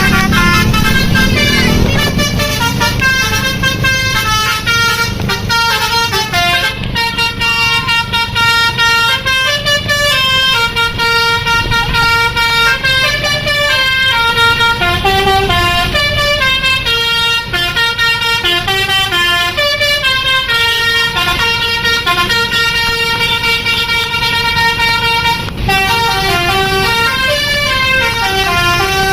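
Bus 'telolet' basuri musical horn playing a continuous melody, its notes stepping in pitch several times a second, over the low running of a bus engine. The tune breaks off briefly near the end, then starts again.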